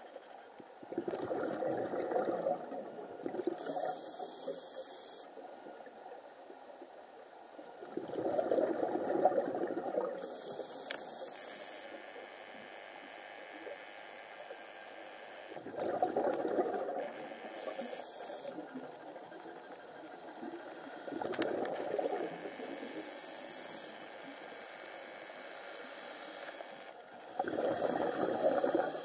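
Scuba diver breathing through a regulator underwater: a rush of exhaled bubbles about every six seconds, five times in all, each followed by a short, thin, high hiss as the diver breathes in.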